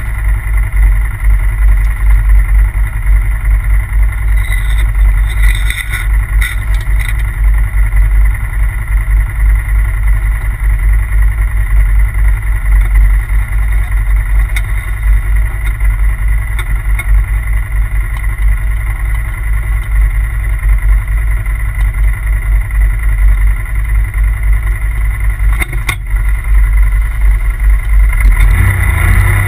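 Polaris RZR turbo side-by-side heard on board while driving: its turbocharged twin-cylinder engine runs steadily under way, with heavy wind buffeting on the microphone, and grows louder near the end.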